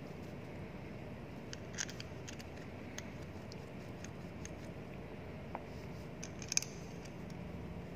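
Light metal clicks and clinks as a painted metal bearing cover is handled and seated onto a centrifugal pump's bearing housing and a bolt is fitted, a few scattered clicks with the sharpest about two-thirds of the way through, over a faint steady hum.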